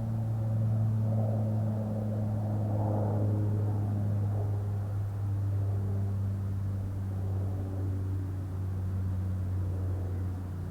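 A steady low engine drone, with a few fainter pitched tones above it that slowly shift in pitch.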